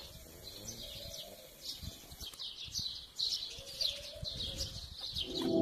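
Small birds chirping over and over, with many short, high, falling chirps a few times a second, some overlapping. Near the end a low, steady ringing tone swells in beneath them.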